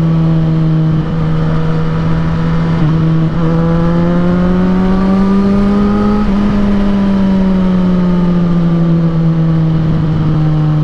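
Yamaha XJ6's 600 cc inline-four engine running steadily under way. Its pitch climbs gently as the throttle opens, about a third of the way in, then slowly drops as the rider eases off.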